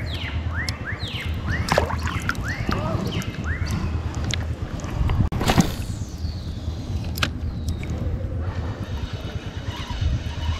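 A bird repeating short rising chirps, about three a second, over a steady low rumble. About halfway there is a sharp falling swish of a spinning-rod cast, and near the end the faint whir of the spinning reel being cranked in.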